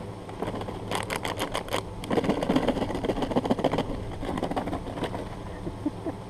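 Rapid crackling and spattering at a shot, smoking laptop, densest for a couple of seconds and then dying away, over the steady hum of a vehicle engine idling.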